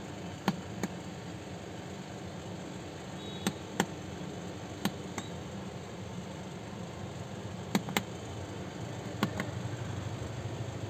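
A few sharp clicks and knocks, mostly in pairs about a third of a second apart, over a steady hiss, from a small plastic fan propeller and motor being handled right beside the microphone. A low hum grows slightly near the end.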